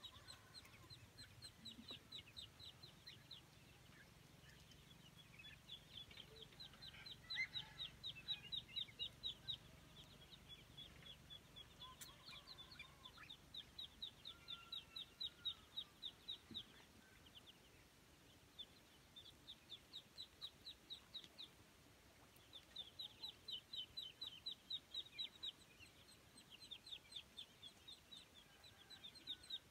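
Young poultry, ducklings and chicks, peeping faintly in fast runs of high peeps, several a second, each run lasting a few seconds before a short pause.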